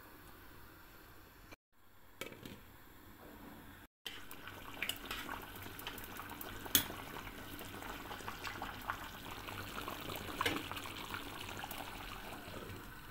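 A pot of thick meatball and vegetable soup bubbling at the boil, with a metal spoon stirring and clinking against the stainless steel pot. The sound cuts out briefly twice early on, then becomes louder and busier from about four seconds in, with the sharpest clink about seven seconds in.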